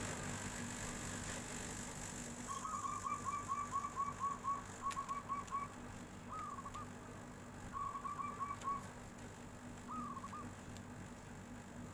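Zebra dove (perkutut) cooing in its flute-like voice: fast runs of short notes, about four a second, broken by pauses and single longer coos.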